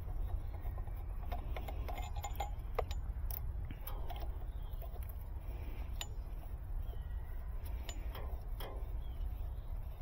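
Irregular small metallic clicks and clinks as brass refrigerant-hose fittings are handled and threaded onto a vacuum pump's brass ports, over a steady low rumble.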